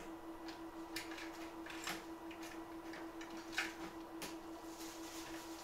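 Steady, evenly pulsing hum from the microsoldering bench equipment, with scattered light clicks and taps of tools being handled at the bench; the sharpest tap comes about three and a half seconds in.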